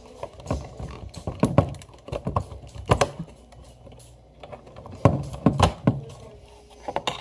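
Irregular clicks and light knocks from hands handling wires, terminals and small parts, loudest about three seconds in and again around five seconds in.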